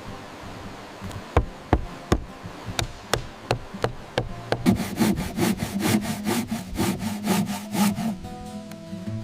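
Wood being worked with a hand saw: a few separate knocks and short strokes, then about halfway through a fast run of sawing strokes, about four a second, that stops about a second before the end.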